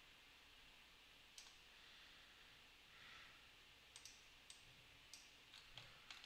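Near silence broken by faint clicks of a computer mouse: one early, then a run of them in quick succession over the last two seconds as a web page is scrolled.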